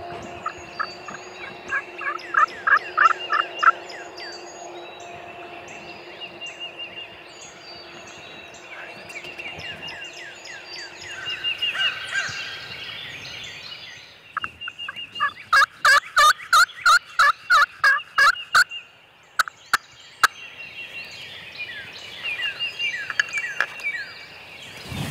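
Turkey calls: two runs of rapid, loud, evenly spaced notes, one about two seconds in and a louder one in the second half. A dawn chorus of songbirds chirps throughout.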